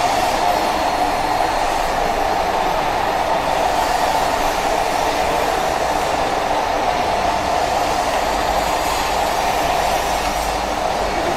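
Fully automatic double-sided bottle labeling machine running, its conveyor and label applicators making a steady, even mechanical noise.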